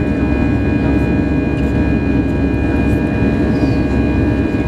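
Airbus A320's CFM56 turbofan engines running steadily at climb power, heard inside the passenger cabin: an even, unbroken noise with a low drone and a few faint steady high tones over it.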